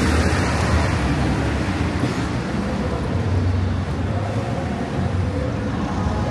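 Busy city street ambience: steady traffic noise with a low engine hum from passing vehicles.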